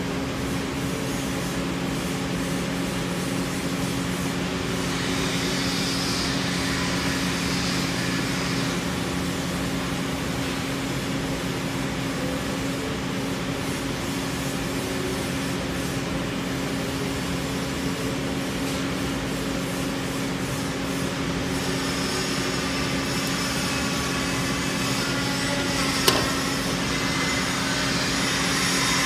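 TIG welding a stainless steel pipe joint: a steady hiss from the arc with a low electrical hum under it. A single sharp click comes near the end.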